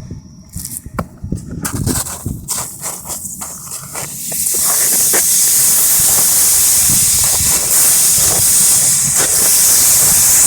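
Freshly poured aluminum bars set down in snow while still hot: a few knocks and crunching for the first few seconds, then from about four seconds in a loud, steady hiss as the snow flashes to steam against the hot metal.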